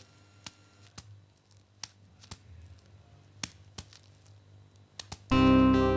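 A few faint, scattered taps and knocks over quiet room tone. About five seconds in, background music with plucked guitar cuts in loudly.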